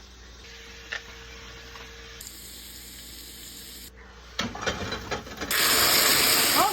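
Cooking in a frying pan on the stove: faint scraping with a single click, then clattering about four seconds in, and from about five and a half seconds a loud, steady sizzle.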